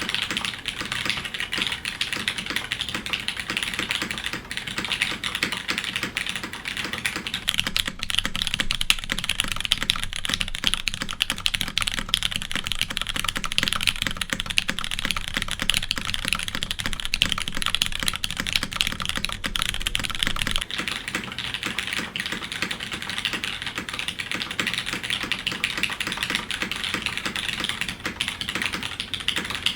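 Continuous fast typing on a custom mechanical keyboard: lubed MX Ergo Clear tactile switches under GMK keycaps, mounted on an aluminium plate in a Kypseli TKL case, giving a dense, steady stream of keystroke clacks.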